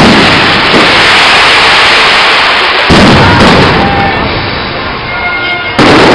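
Aerial fireworks display: shells bursting in a continuous loud crackle and rumble. A heavy bang comes about three seconds in, dies away with a few faint whistles, and a second heavy bang follows near the end.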